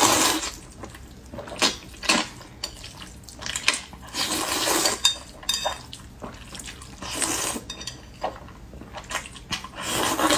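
Sauce-coated noodles being slurped and chewed close to the microphone: several long wet slurps a few seconds apart, with short sharp clicks and smacks between them.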